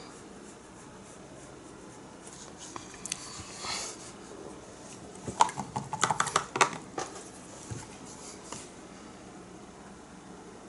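Light clicks and taps from painting tools being handled: a short scratchy rustle, then a quick cluster of small sharp clicks about five to seven seconds in, over faint room hiss.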